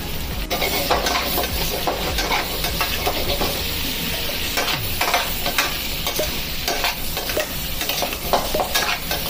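Chilli paneer and vegetables sizzling in a hot steel kadhai as soy sauce goes in and a metal slotted spatula stirs them. The sizzle picks up about half a second in, with repeated scrapes and clinks of the spatula against the pan.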